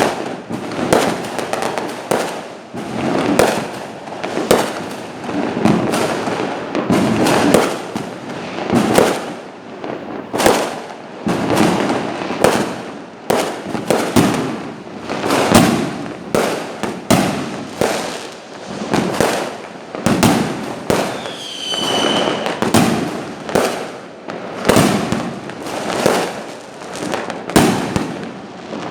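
Fireworks display: aerial shells bursting one after another in a dense, unbroken run of bangs. A short falling whistle sounds a little over three-quarters of the way through.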